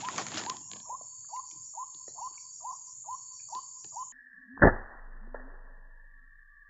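White-breasted waterhen calls, a short falling note repeated about twice a second, which cut off abruptly; half a second later a single sharp crack of an air rifle shot.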